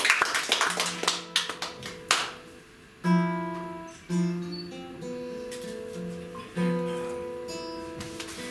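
Classical guitar played solo: rapid strummed chords for about the first two seconds, then, after a short pause, slow chords plucked one at a time and left to ring.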